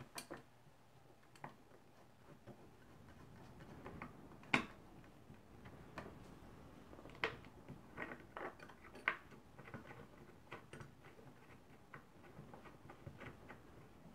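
Scattered small clicks and knocks of a brass ship's-style barometer being handled and set into its gimbal in a wooden box, at no steady rhythm, with one sharper click about four and a half seconds in.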